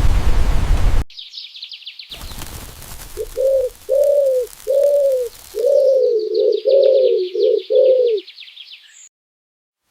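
A dove cooing a run of about eight short, arching notes, over the high chirring of insects. A loud hiss of noise fills the first second, and the sound cuts off suddenly near the end.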